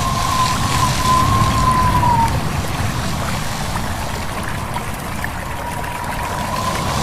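Wind whistling over a steady rush of wind, leaves and stream water: a thin, slightly wavering whistle fades out about two seconds in and rises again near the end, above a constant low rumble.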